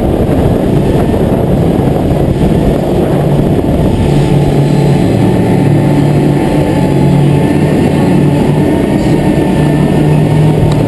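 Sportfishing boat running at speed: a steady low engine drone under the rush of wake and spray, with wind buffeting the microphone.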